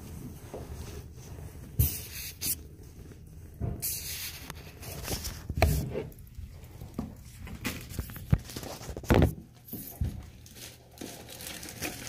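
Hands handling toilet fill-valve parts: irregular knocks and clicks with rustling, the sharpest knocks about two, five and a half and nine seconds in.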